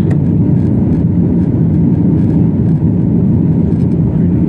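Airliner cabin noise just after takeoff: the steady, loud, low rumble of the jet engines and rushing air, heard from inside the passenger cabin.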